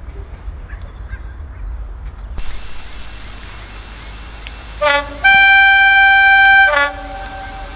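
Steam locomotive whistle: a short toot about five seconds in, then one long steady blast of about a second and a half, with a sputtering start and end.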